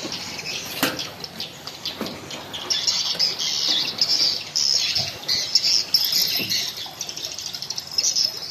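Birds chirping in a dense, uneven chatter, busier from a few seconds in, with a few soft knocks from the phone being handled.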